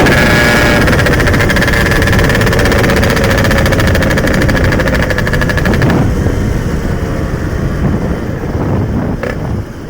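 Yamaha RX-King's 135cc single-cylinder two-stroke engine running while the bike is ridden, its steady note sinking slowly. It eases off and grows quieter from about six seconds in.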